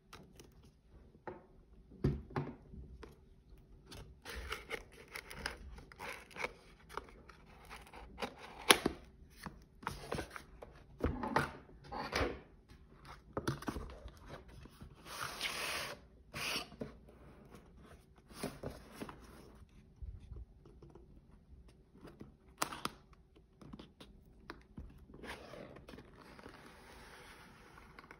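Cardboard packaging being cut open with a small knife and handled: irregular clicks, scrapes and tearing of the seal and cardboard, with two longer stretches of cardboard rubbing and sliding as the box is opened.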